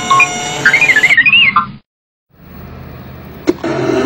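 Intro sound effects of high, warbling squeals for about the first two seconds, then after a short gap a Ducati MotoGP bike's V4 engine running steadily, getting louder about three and a half seconds in.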